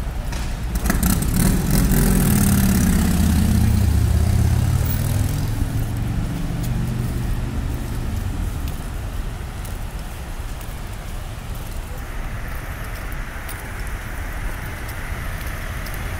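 Street traffic in a slow convoy: a motor vehicle's engine drones past close by, loudest over the first several seconds. It then eases into a steady, quieter rumble of idling and creeping vehicles.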